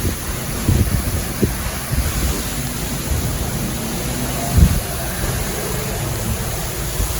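Wind buffeting the microphone: an uneven low rumble that swells and drops in gusts, strongest a little over halfway through.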